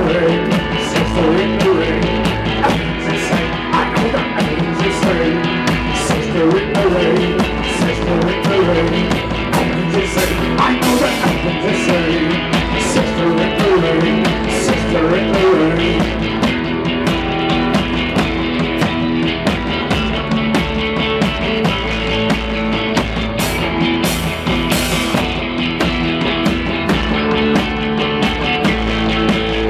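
Rock band playing live: electric bass, electric guitar and drum kit, with regular snare and cymbal hits over a steady bass line.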